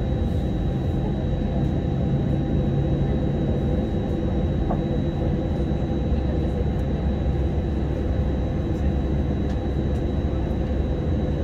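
Steady cabin drone inside an Airbus A320 on the ground before takeoff: an even low rumble with a thin, high steady whine over it.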